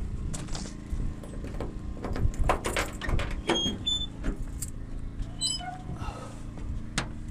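Case CX75SR mini excavator's diesel engine idling steadily just after start-up, running through a freshly refitted muffler on a new, shorter flex pipe. Metallic clicks and rattles over it, loudest a few seconds in, with a few short high beeps around the middle.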